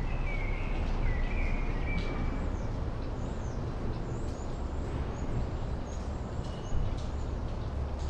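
Outdoor town ambience: a steady low rumble with small birds chirping. A short warbled call comes in the first couple of seconds, and thin high chirps follow around the middle.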